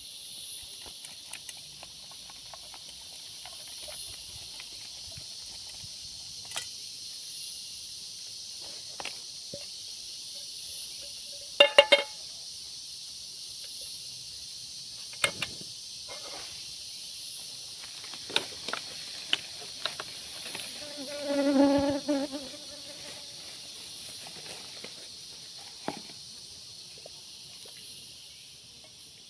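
Steady high insect chorus of a tropical forest, softly pulsing. A few sharp clicks and knocks cut through it, the loudest a quick double knock in the middle, and a short low pitched sound follows a few seconds later.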